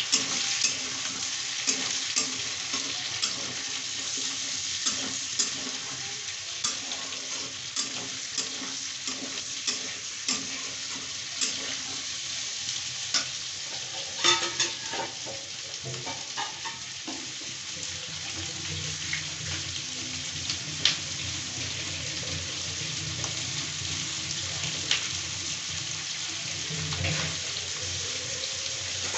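Food sizzling as it fries in a pan, stirred with a utensil that gives frequent short clicks and scrapes against the pan. A low steady hum runs underneath through the second half.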